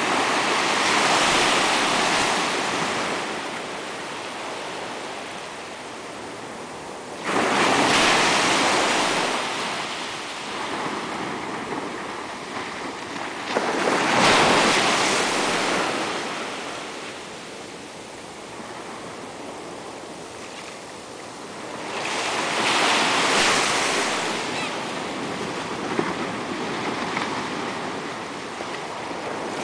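Small ocean waves breaking on a sandy beach and washing up the shore, swelling into a rush four times, roughly every seven seconds, with a softer hiss of water between.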